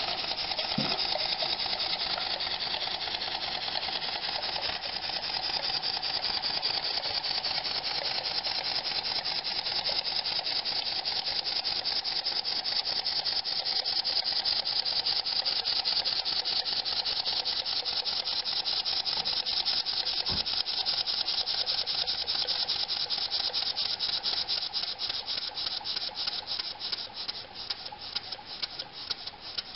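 Model over-crank vertical steam engine running fast on compressed air at low pressure, its exhaust puffs following so quickly that they blend into an even rhythmic chatter. Near the end the beats slow and spread out as the supply valve is turned down.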